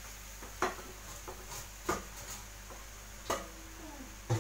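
Several light, sharp knocks and clinks of a kitchen utensil against a frying pan, irregularly spaced, over a steady faint hiss from a pan of cream on a gas hob.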